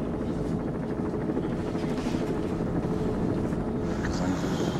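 Steady drone of a tandem-rotor Chinook-type military helicopter in flight, heard from inside its cargo cabin.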